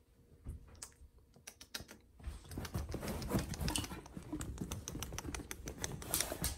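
A small dog's claws clicking and scratching on a leather couch as it moves about on it. The clicks and rustles are sparse at first and come thick and fast from about two seconds in.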